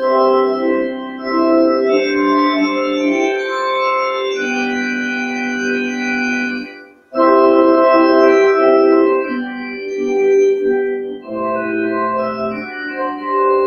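Organ playing slow, held chords, with a brief break about seven seconds in before the next phrase begins.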